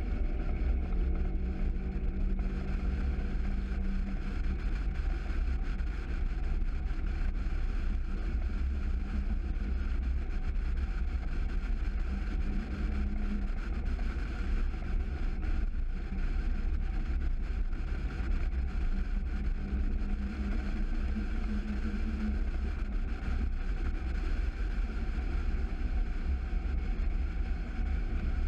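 Mercury 115 Pro XS outboard motor running steadily as a rigid inflatable boat planes across open water, with wind buffeting the microphone.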